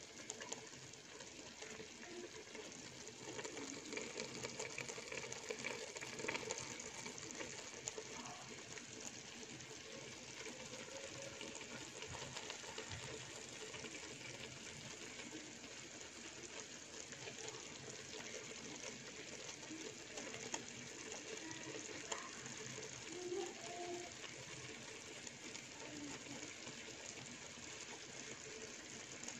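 A pot of chicken kabsa, rice and chicken, steaming and simmering with a steady watery hiss.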